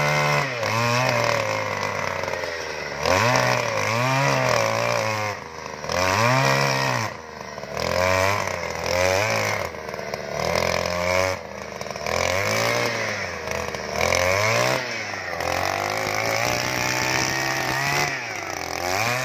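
Handheld two-stroke petrol earth auger boring into soil, its engine revving up and dropping back over and over, every second or two, then running steadier near the end.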